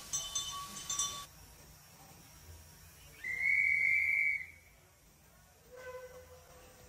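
A single high whistle blast, one steady pitch held for about a second, mid-way through. Ringing bell-like tones cut off about a second in.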